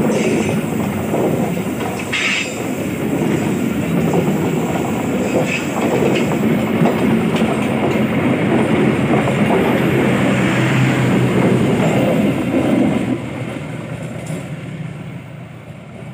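Passenger train coaches rolling past close by, wheels running on the rails with a few sharp clicks. The sound drops off sharply about thirteen seconds in as the last coach passes, then fades as the train moves away.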